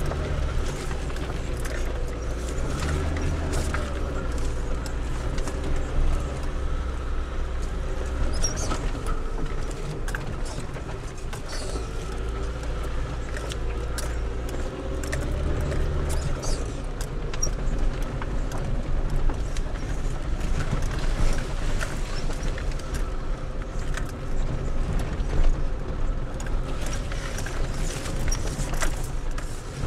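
Car engine running while the car drives slowly over a rutted dirt track, heard from inside the cabin, its pitch rising and falling as the revs change. Frequent short knocks and rattles come from the car jolting over the ruts.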